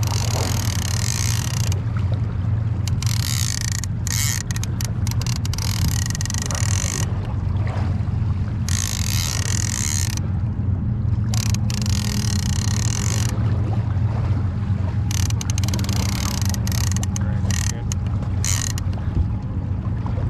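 Spinning fishing reel cranked in spurts, its gears whirring, to take up line on a hooked sturgeon swimming towards the angler. A steady low hum runs underneath.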